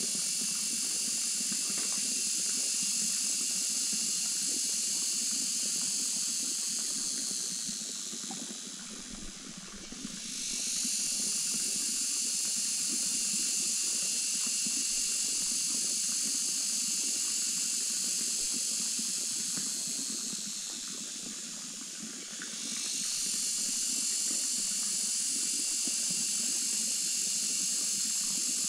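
Cicadas calling in chorus: a loud, high, shrill hiss that dies away twice and swells back up again.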